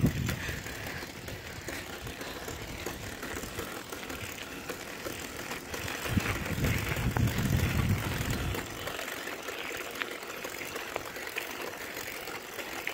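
Wind rushing over a phone's microphone while riding a bicycle, with faint clicking from the bicycle chain. A stronger low rumble of wind buffeting comes from about six seconds in and drops away at about eight and a half.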